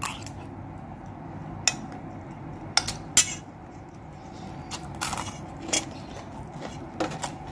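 Cutlery clinking and scraping against a plate while eating, with about seven sharp, irregular clicks.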